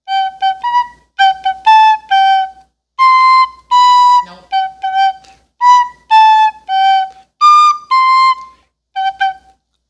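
Plastic recorder played as a simple tune: a run of separate notes, some short and quickly repeated, others held for about half a second.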